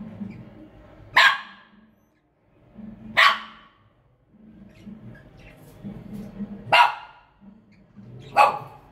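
Four loud, short animal calls, one every two seconds or so, over a faint steady hum.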